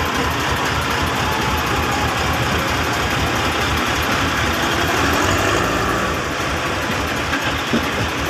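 Heavy machinery engine running steadily as logs are unloaded, with a small knock near the end.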